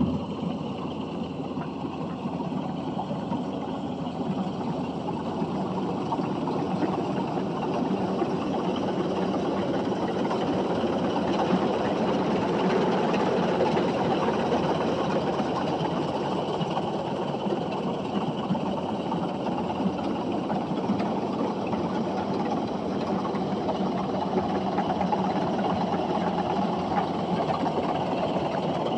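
An engine running steadily, starting abruptly and holding an even drone, a little louder after the first few seconds.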